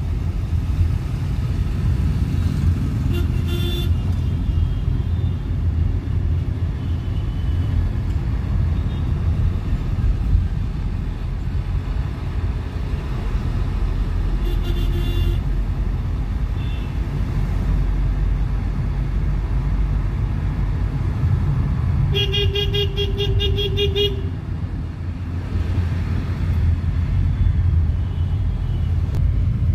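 Steady low rumble of a car's engine and road noise heard from inside the cabin, with vehicle horns in the surrounding traffic: short toots about 3 s and 15 s in, and a longer, rapidly pulsing horn for about two seconds near 22 s.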